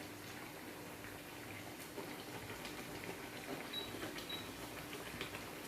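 Mandazi frying in hot oil: a faint, steady sizzle with scattered small crackles, over a low steady hum.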